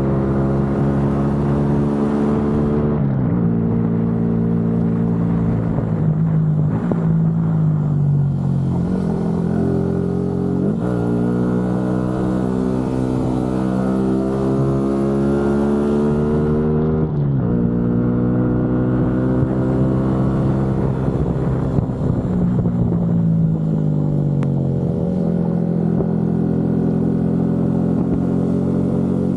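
Motorcycle engine under way, heard from the rider's camera. Its pitch climbs steadily through each gear and drops sharply at gear changes about 3, 11 and 17 seconds in. Twice it eases off with a falling pitch, around 6 seconds and again after 20 seconds.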